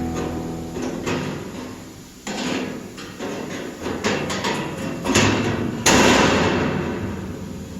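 A series of sharp knocks and clanks, about seven over several seconds, each with a short ringing tail, the last two the loudest: freshly plasma-cut steel pieces being knocked and handled on the cutting table.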